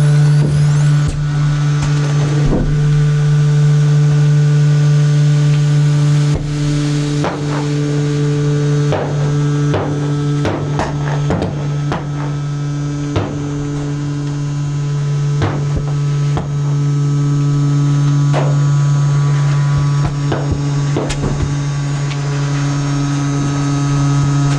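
Hydraulic drive of a bulky-waste compactor container humming steadily while the press works on garbage bags, with about a dozen sharp cracks and clicks from the trash and bags being squeezed.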